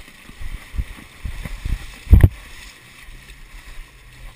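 Irregular low thumps and rustling from a body-worn action camera jolting with its wearer's steps over a mud and dirt course, over a light hiss of wind on the microphone. One heavy thump comes a little over two seconds in.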